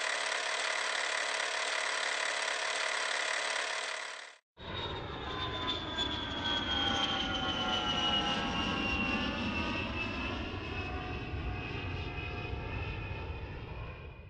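Airliner engine noise in two clips: first a steady drone with several held tones, then, after a cut, a noisy rush with a whine slowly falling in pitch.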